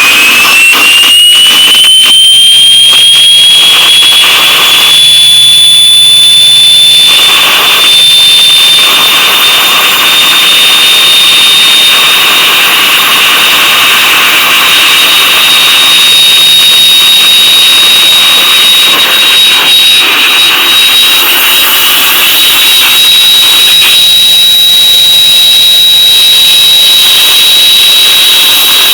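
Garrett Powermax turbocharger on a 2004.5 LLY Duramax diesel whistling loudly over the engine's rush. The high whistle climbs in pitch over the first several seconds, then holds at a steady pitch.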